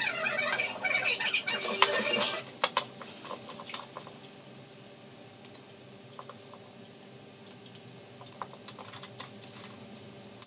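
Greyhound chewing a hard bone: dense crunching and cracking for the first couple of seconds, then only occasional softer clicks of gnawing.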